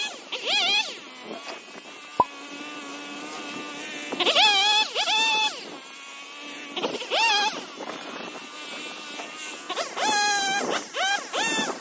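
Two-stroke chainsaw revving in short bursts, its pitch rising and falling with each blip of the throttle and dropping back to a low hum in between.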